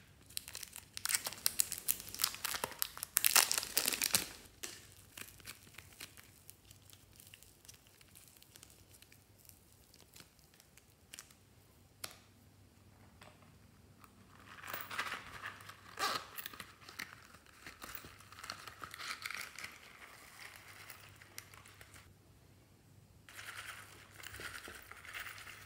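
Thin plastic bags crinkling and rustling in the hands as soft clay is squeezed out of one and a packet of sequins is handled and shaken out. Dense crackling for the first few seconds, a quiet stretch, then longer rustling spells in the second half.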